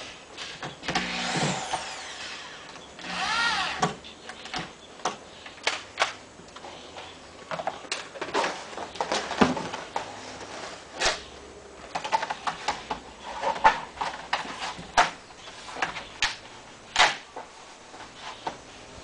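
A corded electric drill whirs twice in short runs near the start, spinning up and down as it fastens vinyl siding. After that, a long vinyl siding panel is handled and snapped onto the wall, giving a scatter of sharp plastic clacks and knocks.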